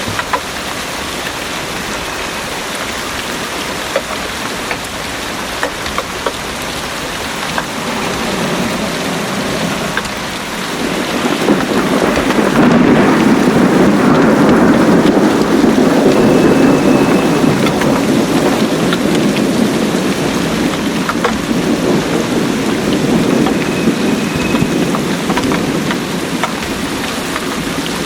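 Heavy rain pouring steadily, with scattered sharp drip clicks. About ten seconds in, a long rumble of thunder swells up over it, stays loud for several seconds, then slowly fades away.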